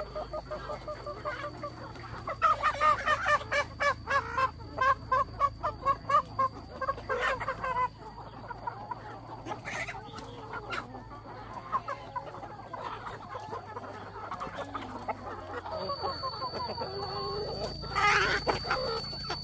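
Chickens clucking. A fast run of repeated calls comes about two seconds in and lasts several seconds, softer calls follow, and there is a louder call near the end.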